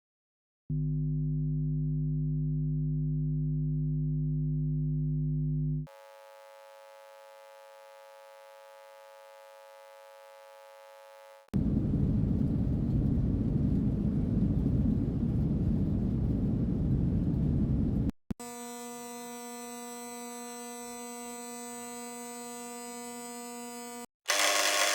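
A run of short buzz and hum sound effects, each a few seconds long and cut abruptly to the next. First a loud, deep steady hum, then a quieter, higher thin buzz, then a loud low rumbling hum with noise, then a steady tonal electrical buzz, with another loud buzz starting near the end.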